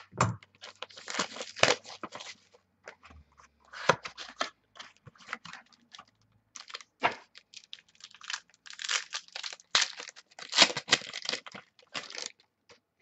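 Plastic wrapping on a sealed 2014 Inception football card box being torn off and crinkled by hand, in irregular bursts of tearing and crackling with short pauses, busiest about a second in and again from about eight to twelve seconds in.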